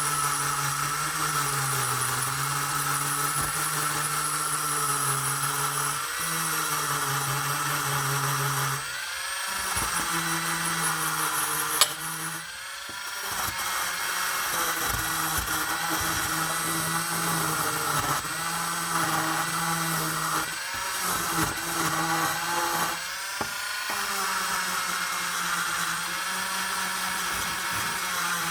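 Power tool spinning a wire wheel against a carburetor bowl to scrub off deposits, a steady motor whine that shifts in pitch under load and stops briefly a few times, with one sharp click about twelve seconds in.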